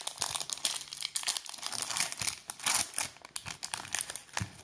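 Plastic trading-card pack wrappers crinkling and tearing as football card packs are ripped open, an irregular crackle with a few brief pauses.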